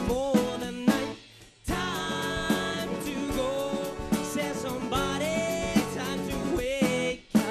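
Live band music with a lead singer; the music drops out briefly about a second in and again just before the end.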